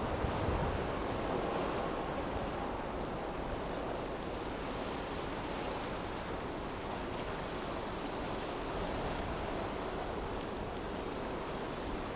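Rough sea waves surging and breaking in a strong wind: a steady rushing wash of surf.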